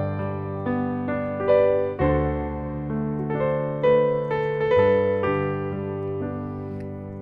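Piano playing an instrumental passage with no voice: single melody notes struck one after another over low held chords that change twice, the sound thinning and growing quieter near the end.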